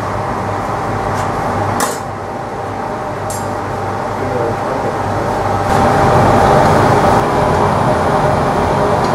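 Steady roar of a glassworks' furnace and fans, growing louder a little past halfway, with a few light clicks of glassblowing tools as the iron is rolled on the chair arms and steel jacks shape the bowl of a lead crystal goblet.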